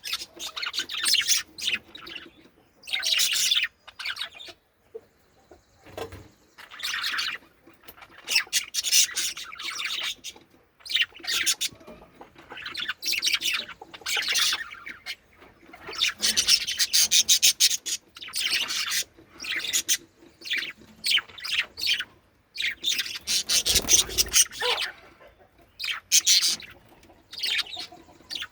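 Budgerigars chattering and chirping in short, high-pitched bouts, one after another with brief pauses between.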